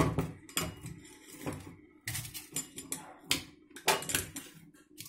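A series of knocks and clatters as roasted maize cobs are handled and set down on a steel plate.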